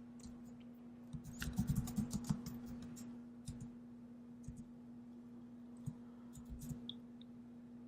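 Computer keyboard typing, quiet: a quick run of keystrokes a little over a second in, then a few scattered key clicks, over a faint steady electrical hum.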